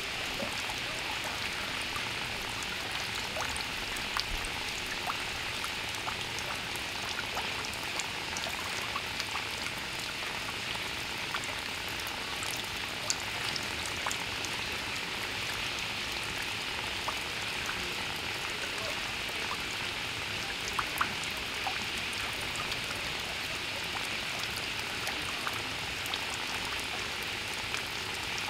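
Water from a garden fountain falling and splashing steadily, an even hiss with scattered small drips.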